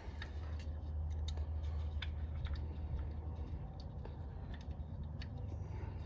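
Faint, irregular small metallic clicks and ticks from a hex key and bolt as a motorcycle's rear ABS wheel-speed sensor is unbolted and worked loose, over a steady low hum.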